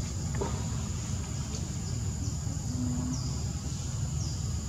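Forest ambience: a steady high-pitched insect drone over a low rumble, with two short falling chirps from a bird.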